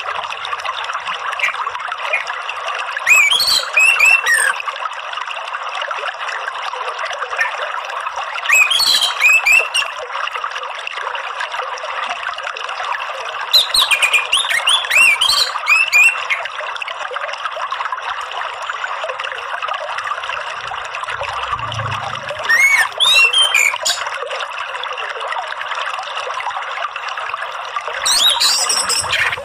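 Orange-headed thrush (anis merah) singing in five short bursts of quick, varied phrases over a steady rush of running water.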